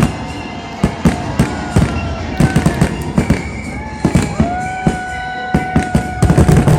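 Aerial fireworks shells bursting in a rapid, irregular string of booms and cracks, thickest about six seconds in, with a few held and gliding tones over them.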